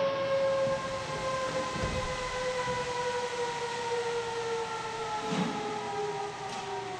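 A small motor's whine, slowly falling in pitch as it spins down, with a couple of soft knocks.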